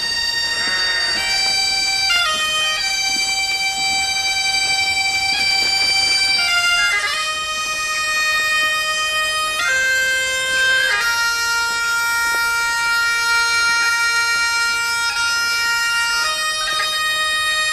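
Music: a slow melody of long held notes on a reed or pipe instrument, moving from note to note every one to few seconds without pause.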